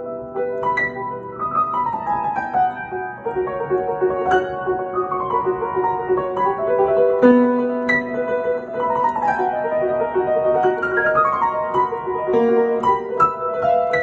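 Upright piano improvisation in F sharp major, busy and fast, with repeated downward runs of quick notes over held chords.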